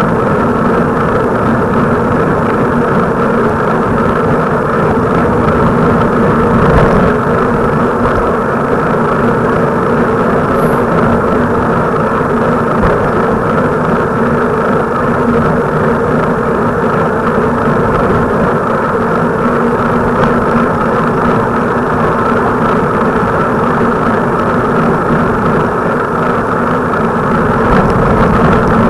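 Steady, loud running noise of a moving vehicle: an even drone with a constant hum that holds unchanged throughout.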